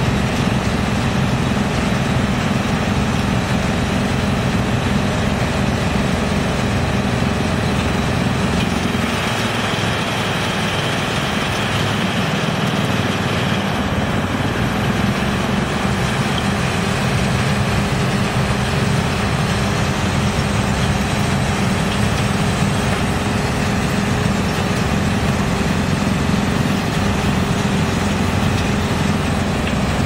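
YGX2113 drum wood chipper running while it chips logs, together with the excavator's diesel engine feeding it: a loud, steady mechanical din. About a third of the way in, the low hum eases for several seconds and a higher band of noise comes up.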